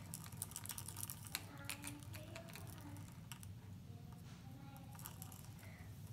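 Scattered light clicks and taps of small plastic light-up spinning tops being twisted and set down on a granite countertop, thickest in the first second or so.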